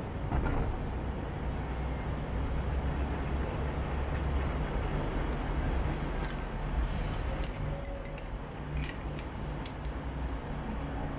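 Steady low rumble of distant city traffic. In the second half come a few faint, sharp clicks.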